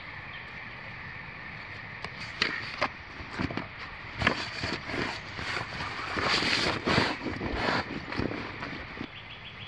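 Rustling and crinkling of a waterproof roll-top pannier bag being handled and fitted to a motorcycle's rear rack, with sharp clicks and knocks among the rustling. The handling starts about two seconds in and is busiest in the middle.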